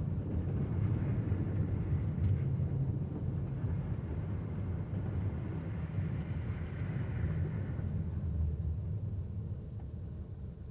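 Car being driven: a steady low rumble of engine and tyres on the road, dying down over the last couple of seconds.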